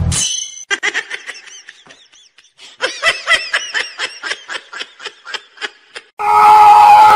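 High-pitched giggling laughter: runs of short 'hee-hee' bursts, about three a second, with a pause of about a second early on. A brief swoosh opens it, and near the end a much louder steady sound cuts in.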